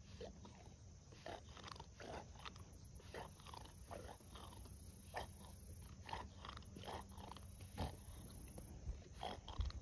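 A dog making short, faint sounds at an uneven pace, a few a second, each sliding slightly down in pitch.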